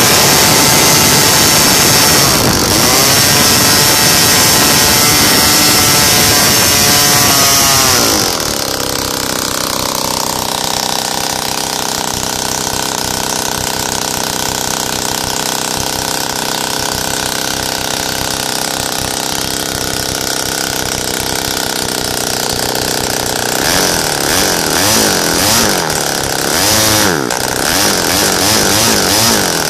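Single-cylinder RCS 140 two-stroke gasoline model-aircraft engine on CH CDI ignition, open exhaust with no tuning pipe, turning a 16x8 propeller. It runs fast at first, is throttled back sharply about eight seconds in to a steady high idle (high for lack of the tuning pipe's back pressure), then is blipped up and down repeatedly over the last several seconds.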